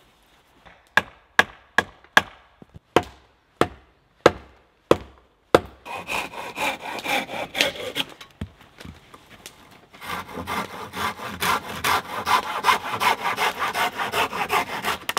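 A hand saw cutting through wood with rapid rasping strokes, steady for the last five seconds. Before it comes a run of about ten sharp wooden knocks, each one separate.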